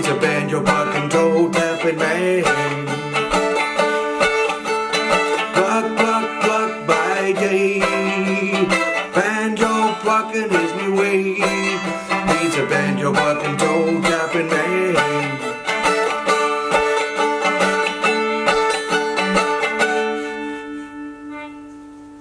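Instrumental ending of a song on quick picked plucked strings; near the end the picking stops and a final chord rings out and fades.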